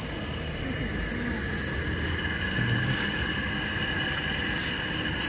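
Steady street ambience: a constant background hum with two steady high-pitched tones running through it, and a faint voice briefly about halfway.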